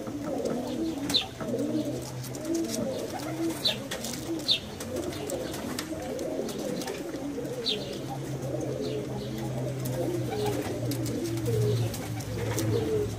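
Several Vieshiana high-flyer pigeons cooing continuously, their coos overlapping and rising and falling in pitch. A few short, high chirps cut in now and then, over a steady low hum.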